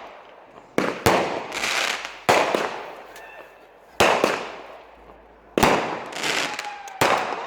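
Consumer firework cake firing its shots one after another: about six sharp bangs, each fading out over a second or so, spaced roughly one to one and a half seconds apart.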